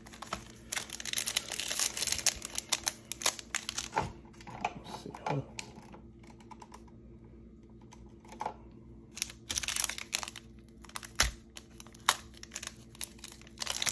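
Trading cards and a foil O-Pee-Chee Platinum hockey card pack being handled: rapid papery clicks of cards being stacked and set down, with crinkling of the foil wrapper, in two busy spells with a quieter lull between. Near the end the foil pack crinkles as it is picked up to be opened.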